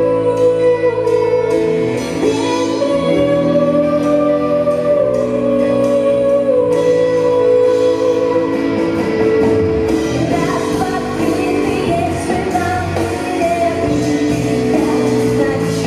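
Music with singing, from a band with guitar and drums; held melodic tones at first, the accompaniment growing fuller about halfway through.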